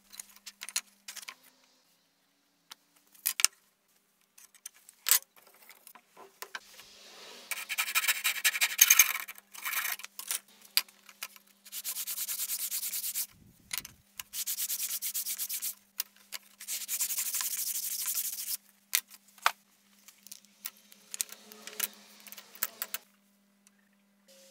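Thin wooden strips being sanded by hand: a rough spell of rubbing, then three long even strokes of about a second and a half each, with scattered knocks of wood pieces handled on the workbench.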